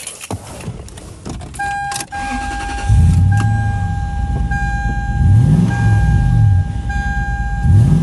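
Keys rattle, then a car's warning chime starts sounding as a steady tone broken about once a second. About three seconds in, the 2001 Toyota Sequoia's 4.7-litre V8 is cranked, catches and runs, its revs rising and falling a couple of times, in a test start after replacing an ignition coil to cure a misfire.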